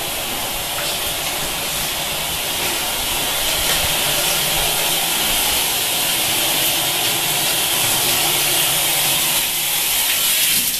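Shower running, water spraying from the shower head in a steady hiss.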